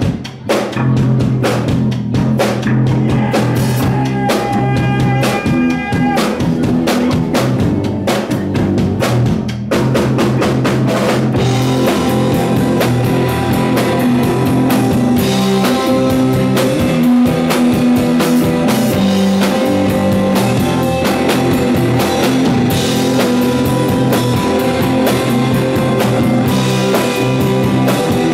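Live rock band playing an instrumental passage with drum kit, bass guitar and electric guitars. The band grows fuller about ten seconds in.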